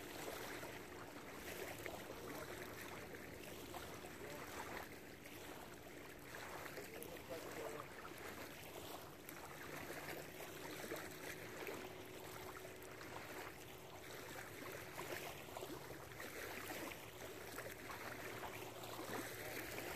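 Steady ambient noise of wind and lake water, with no single distinct event.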